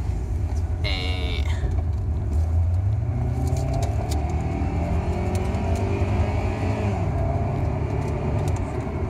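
Acura sedan's engine heard from inside the cabin under steady road rumble, rising in pitch as the car accelerates, then dropping about seven seconds in as it shifts up a gear. A brief high-pitched sound comes about a second in.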